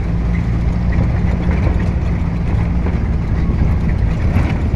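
UAZ off-road vehicle's engine running steadily under way, a loud low drone heard from inside the cabin.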